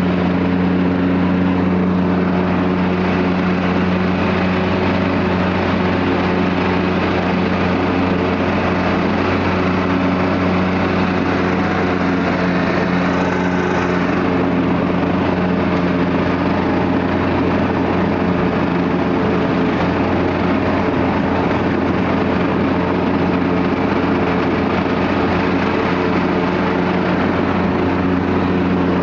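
Lawn mower engine running steadily at one speed while mowing, a constant drone that holds the same pitch throughout.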